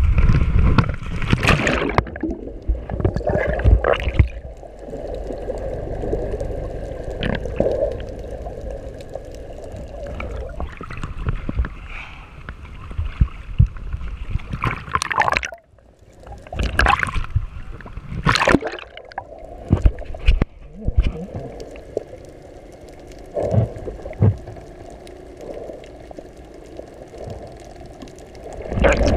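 Water gurgling and sloshing around an action camera, with repeated sudden splashy bursts. After a short dropout about halfway through, it is underwater gurgling and bubbling.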